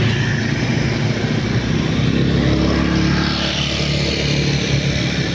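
A motor vehicle engine running steadily under a broad rushing noise, its low hum growing stronger about two seconds in.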